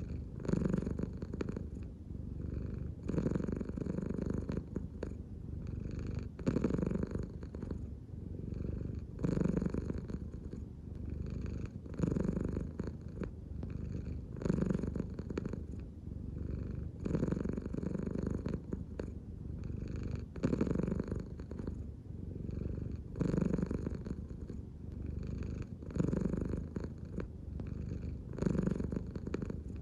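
An American Shorthair cat purring steadily and close up, the purr swelling and easing about every three seconds in time with its slow belly breathing.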